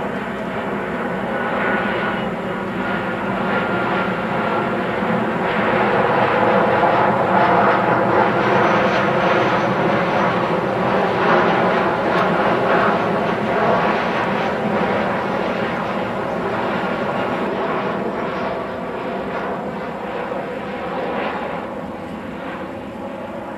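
Boeing 737 jet airliner with CFM56 turbofans on final approach, gear down, passing low overhead: engine noise with steady whining tones. It grows louder to a peak about seven to thirteen seconds in, then slowly fades.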